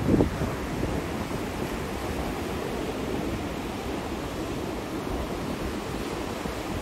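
Steady rushing noise of wind buffeting the microphone, mixed with the wash of waves, with a brief louder gust right at the start.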